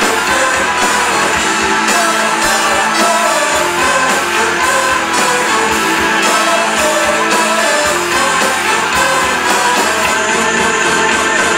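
Ska-punk band playing live and loud: electric guitars and brass (trumpet and a second horn) over a steady drum beat, in an instrumental stretch of the song.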